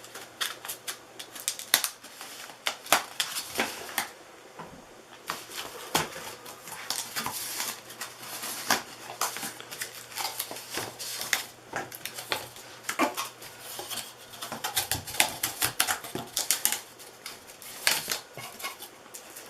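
Cardboard box packaging being handled and worked free, with a run of irregular crackles, scrapes and sharp knocks.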